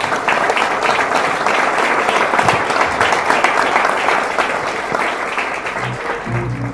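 Audience applauding at the close of a talk. Music comes in near the end as the clapping dies away.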